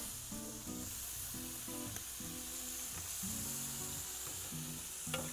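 Boneless chicken thighs sizzling on a hot griddle plate over charcoal, a steady frying hiss, with a couple of sharp clicks near the end. Background music with held low notes plays over it.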